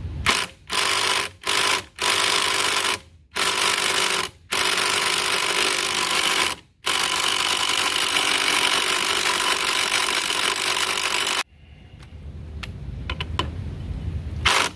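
Impact wrench hammering on a tight 17 mm scooter variator nut: several short bursts with brief pauses between them, then one long burst of about four and a half seconds that stops about eleven seconds in. The nut is stuck hard.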